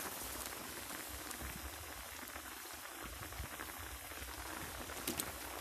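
Coconut-milk curry simmering in a wok, bubbling steadily, with a couple of brief clicks near the end.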